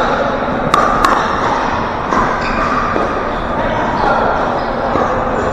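Pickleball rally: two sharp pocks of a paddle and plastic ball about a second in, a third of a second apart, over voices echoing in a large gym hall.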